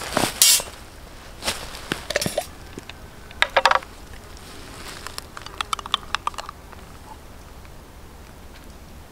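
Light clinks, clicks and rustles in several short bursts from hands handling camp cookware and food containers while plating grilled trout, including a quick run of small clicks about two-thirds of the way through; then just a low, steady background.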